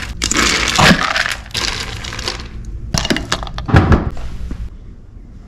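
Dry dog kibble rattling and pouring as it is scooped out of a food bin and tipped into a dog bowl. About three seconds in come a few sharp knocks and a heavier thud as the round wooden lid goes back onto the bin.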